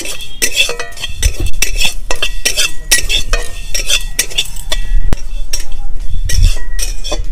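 Flat metal spatula scraping and clinking against a dry metal kadai while stirring dry-roasting panch phoron seeds, with repeated strokes about two or three a second and the seeds rattling across the pan.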